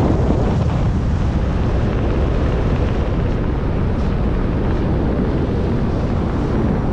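Steady rush of wind buffeting the microphone as a tandem paramotor glides down with its engine stopped; no motor note is heard.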